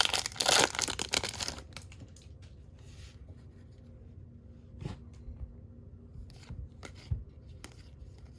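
Baseball card pack wrapper being torn open and crinkled, loud for about the first second and a half, then faint rustles and light clicks as the cards inside are handled.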